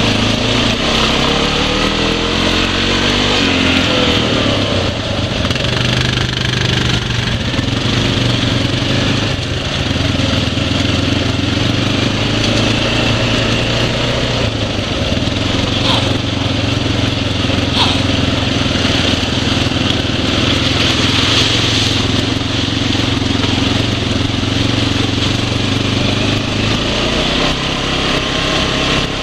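Single-cylinder ATV engine running while riding a trail; its pitch wavers with the throttle in the first few seconds, holds steady for a long stretch, then drops near the end.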